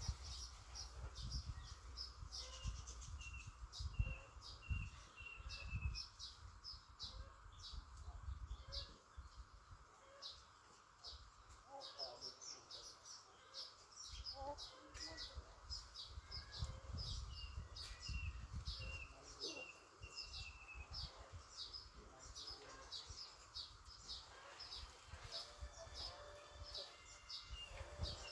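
Many small birds chirping quickly and without pause, dense short high chirps, with a few runs of lower falling notes. There is a low rumble underneath.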